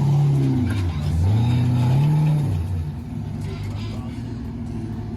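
Jeep engine working under throttle on an off-road climb: it eases off about a second in, revs up again, then drops back to a quieter steady run about three seconds in.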